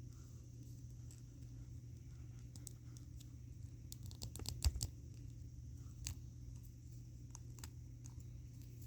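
Small plastic clicks and taps from handling and fitting a nendoroid figure's parts, with a quick cluster of them about four to five seconds in, over a steady low hum.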